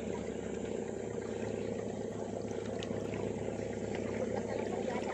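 Small spinning reel being wound steadily as a lure is retrieved: a continuous, even whirring.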